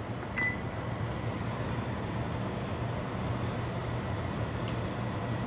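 Microwave oven running with a steady low hum after a short high beep about half a second in, as it starts heating a bag of popcorn before any popping.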